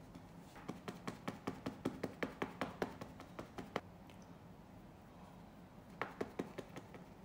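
Makeup puff dabbing foundation, a run of quick soft taps about six a second for three seconds, then a shorter run of taps near the end.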